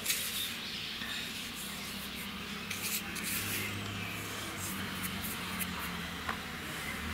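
Soft rustling and light gritty rubbing of fingers pinching and sprinkling baking soda over rice-and-jaggery batter in a steel bowl, with scattered small ticks, over a faint steady low hum.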